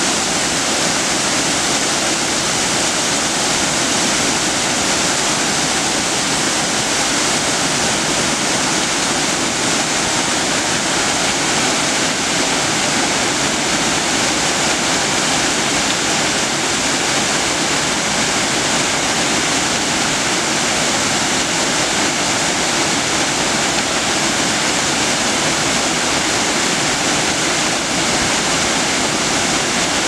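Small waterfall tumbling in several cascades over rock ledges into a pool: a loud, steady rush of falling water.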